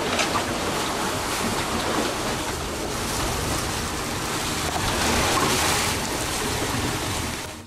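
Strong gale wind and rough sea rushing past a small sailboat, heard from inside its cabin as a steady, loud rush of wind and water, with a sharp hit of spray or a knock at the start.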